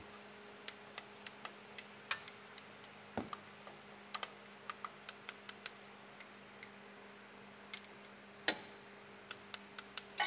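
Hand ratchet clicking in short runs of a few clicks, about three a second, as the sump bolts are tightened, with two louder knocks among them. A steady low hum runs underneath.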